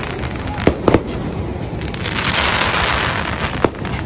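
Aerial fireworks bursting overhead: a continuous dense hiss of bursting shells, with sharp bangs, three close together just under a second in and another near the end.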